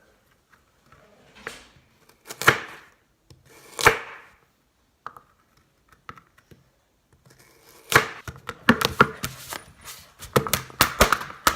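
Kitchen knife chopping carrots on a cutting board. There are three separate cuts in the first four seconds, then a quick run of chops from about eight seconds in.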